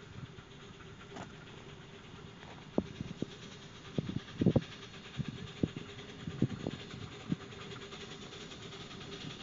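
Miniature steam locomotive running in the distance and drawing closer, a faint steady background with a scattering of sharp, irregular knocks in the middle.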